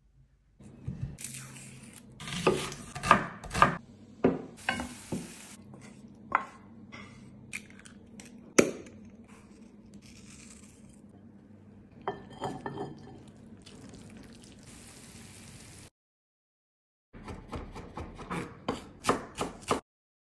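Cooking sounds in quick cuts: knocks and clinks of bowls and utensils, chopping, and the stirring of cod mince, with a hiss between them. The loudest knock comes a little before halfway, and the sound drops out for about a second near the end.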